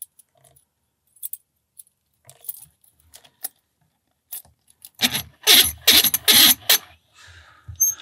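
Small keys on a metal ring jangling and clinking against a brass padlock as it is handled: a few faint clicks at first, then several loud rattles about five to seven seconds in.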